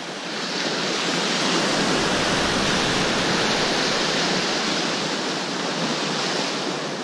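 Ocean surf: a wave's hiss swells about half a second in, holds for several seconds and eases off near the end.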